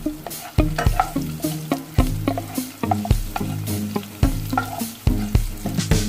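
Wooden spatula stirring chopped garlic and onion frying in oil in a nonstick pot: a light sizzle with repeated sharp knocks and scrapes of the spatula against the pan, about two a second.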